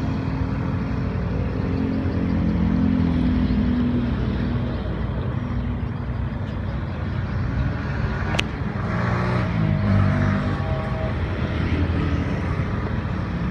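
Motor vehicles running past close by, a steady low engine rumble that swells twice as vehicles pass, with a sharp click about eight seconds in.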